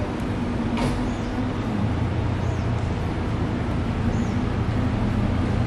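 Outdoor street ambience: a steady low rumble of road traffic. A brief sharp sound comes about a second in, and a few faint, short high chirps are scattered through.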